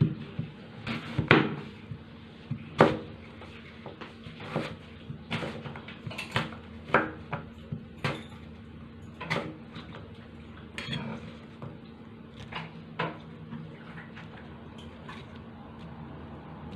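Kitchen knife cutting an apple on a wooden cutting board: irregular sharp knocks of the blade striking the board, the two loudest in the first few seconds.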